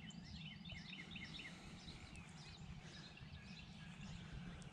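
Faint bird song: a quick run of short, falling chirp notes lasting about a second near the start, with a few scattered chirps later, over a low steady background rumble.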